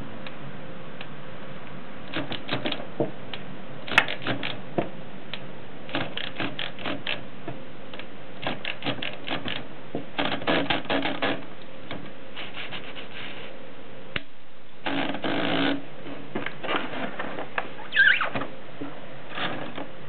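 Portable typewriter's carriage and platen mechanism worked by hand: short runs of quick mechanical clicks from the carriage return lever and ratchet, with a brief steadier sliding sound partway through.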